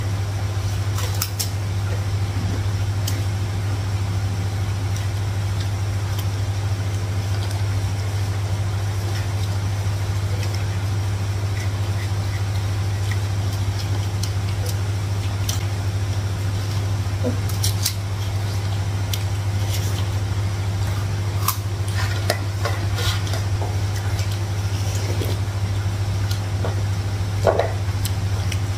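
A steady low hum, with now and then a light clink of spoons and dishes as people eat.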